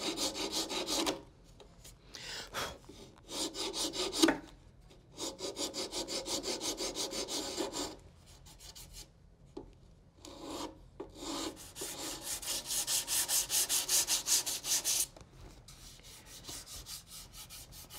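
Hand rasp filing down the edge of a glued-in scrap-pine patch on a wooden drawer front. It comes in several runs of quick back-and-forth strokes with short pauses between.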